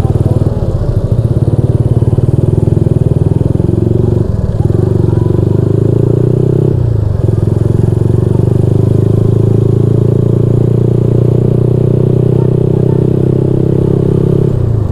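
Honda Supra X 125's single-cylinder four-stroke engine running under way as the bike pulls away from slow traffic. The engine note breaks briefly about four and a half and seven seconds in where it shifts up, then runs steadily.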